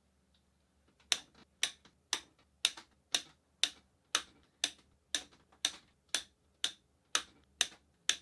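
Steady clock-like ticking: sharp ticks exactly two a second, evenly spaced, starting about a second in.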